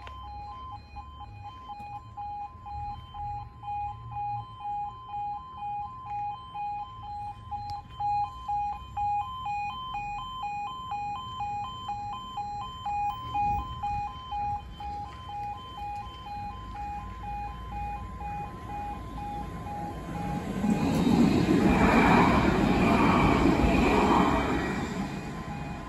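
Level crossing warning alarm sounding a repeating pulsed two-note beep, about one and a half a second, while the crossing is closed. From about 20 seconds in, a tram passes over the crossing and its wheels running on the rails swell loudly for a few seconds and fade.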